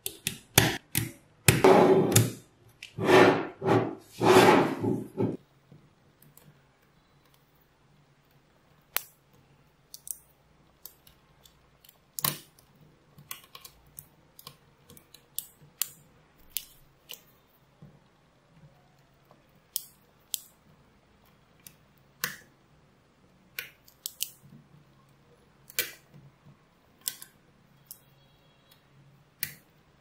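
Small neodymium magnetic balls being handled: for the first five seconds or so, loud rubbing and rattling as sheets of balls are pressed and slid against each other. After that come sharp single clicks, irregular and roughly one a second, as balls snap onto the structure.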